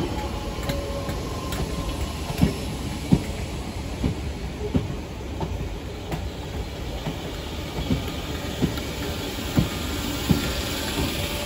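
Merseyrail electric multiple unit rolling slowly past with a low rumble, its wheels knocking over the rail joints every second or so. A faint wheel squeal comes in near the end.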